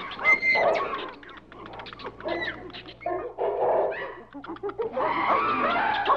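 Busy mix of animal calls: many short, overlapping yelps and chirps that come in clusters, with quieter spells about a second in and again around four seconds in.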